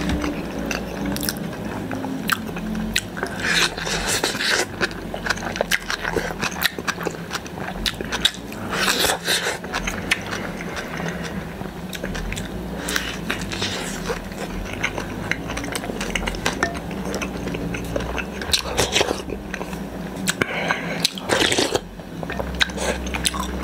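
Close-miked eating: chewing, with several slurps of soup and noodles from a wooden spoon, and many small clicks of the spoon against a glass bowl.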